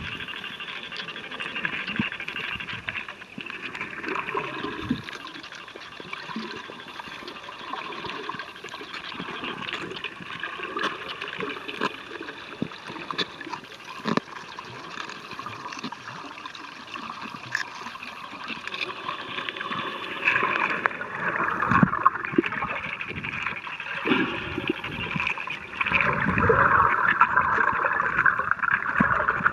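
Water sloshing and gurgling around a submerged camera, heard muffled through its housing, with scattered small clicks; it grows louder about two-thirds of the way in and again near the end.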